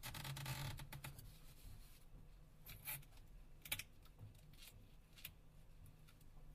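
Faint scratchy rustle of the battery's adhesive tape being pulled out of a Nokia Lumia 1520 with pliers and fingers, followed by scattered small clicks of handling.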